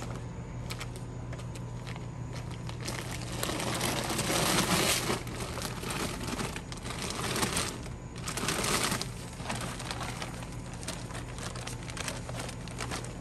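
Sandbags being handled and set down against a door, making rustling noise in irregular bursts that are loudest about four and eight seconds in, over a steady low hum.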